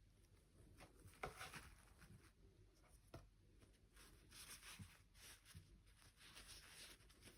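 Faint rustling with a few light clicks, the sound of small objects being handled.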